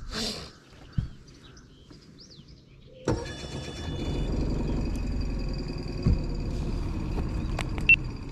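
A boat motor starts about three seconds in and then runs steadily with a faint whine, with a few knocks against the boat.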